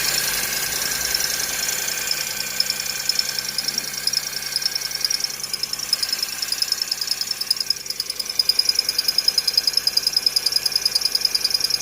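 2010 Honda Fit engine running cold with its accessory drive belt squealing: a high-pitched, rapidly pulsing chirp over the engine hum, growing choppier in the last few seconds. The mechanic traces it to the belt rubbing because the air-conditioning compressor is pulling it out of alignment.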